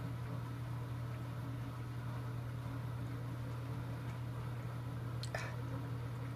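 Steady low electrical hum of aquarium equipment, with one brief click about five seconds in.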